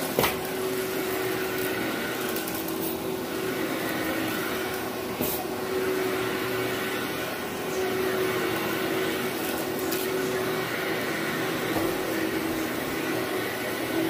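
Upright vacuum cleaner running steadily on carpet, a constant motor hum and air rush, with a few brief sharp clicks as debris is sucked up.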